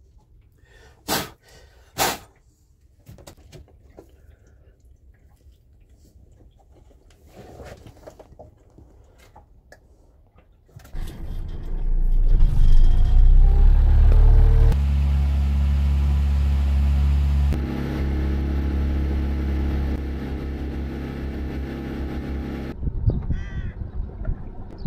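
Two short, loud sounds a second apart, then the boat's motor starts about eleven seconds in and runs steadily. The motor gets louder for a few seconds, then settles, and eases off near the end.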